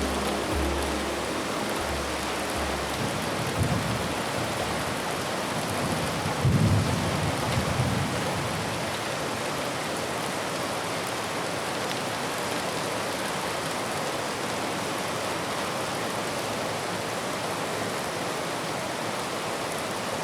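Steady rain falling, with low rumbles of thunder about four seconds in and again around seven seconds in. Low sustained music notes fade out in the first few seconds.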